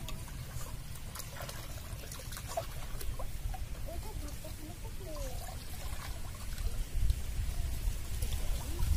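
Shallow pond water trickling and splashing as a person wades and scoops with a hand net along the bank, over a low rumble that grows louder near the end.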